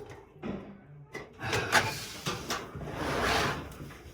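Handling noise: several knocks and clunks, then a longer scraping rush a little past halfway.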